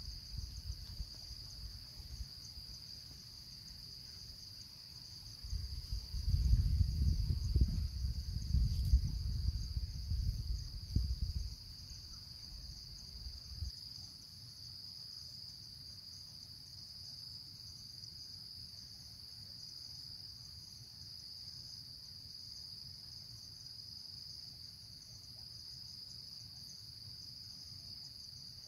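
Steady, high-pitched chorus of insects droning on one unbroken pitch. A louder low rumble comes in about five seconds in and dies away after about eleven seconds.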